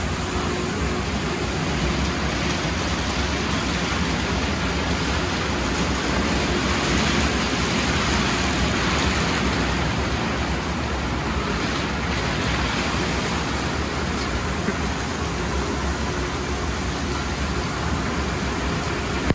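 Steady rushing of water spray and foam pouring over a car, with the spinning cloth wraparound brushes of a MacNeil tunnel car wash swishing and slapping against the bodywork. The noise swells slightly around the middle as the brushes pass closest.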